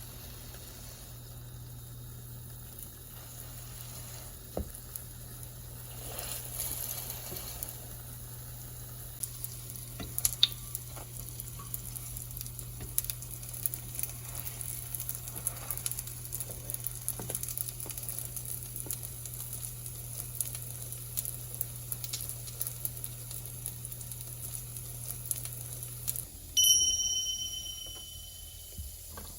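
Hotteok (Korean filled pancakes) sizzling as they fry in oil in a pan, with scattered crackles and a few sharp clicks. Near the end a low hum stops, and a short bright ringing tone follows and fades.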